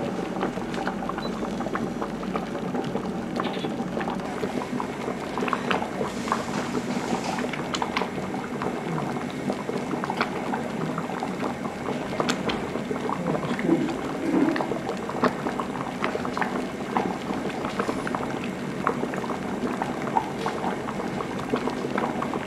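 Copper cauldron of acorns, water and wood ash boiling over the fire: a steady bubbling with many small irregular pops. The ash is added to bring the acorns to full cooking faster.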